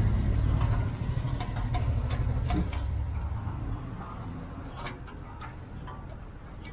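A low vehicle rumble that fades away after about three and a half seconds, over light clicks and taps of a wire being handled and pushed against the metal spare-wheel bracket and tailgate.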